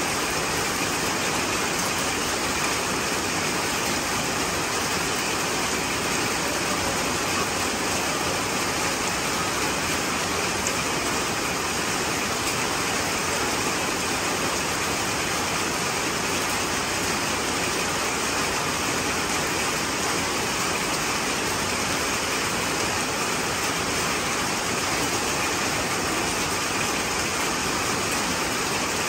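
Steady rain falling onto wet ground and puddles, a constant even rush of water.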